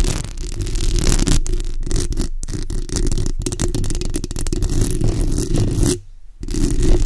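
Long acrylic nails scratching rapidly on a microphone's bare metal mesh grille: a dense, close run of scratches with a deep rumble under it, breaking off for a moment about six seconds in.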